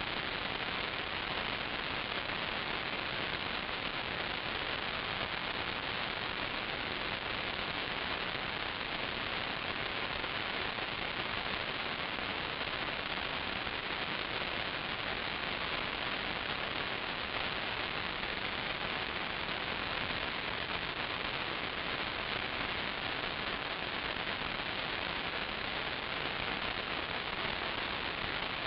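Steady static hiss from the audio channel of an analog 5.8 GHz FPV video receiver recording the downlink: an even noise with no engine or propeller tone in it, cutting off suddenly at the end.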